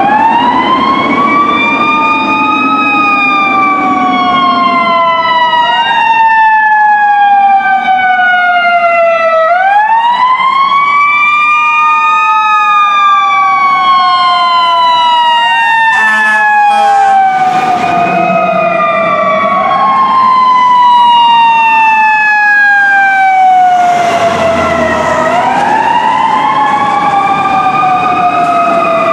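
Sirens of two fire trucks wailing together, each cycle a quick rise and a long slow fall, the two cycles out of step. Short horn blasts join in about halfway through.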